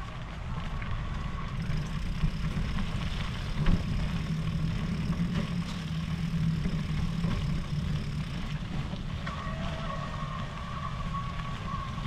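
Riding an electric mountain bike: a thin steady motor whine over a heavy rumble, with a few small knocks. The whine fades in the middle and comes back stronger near the end.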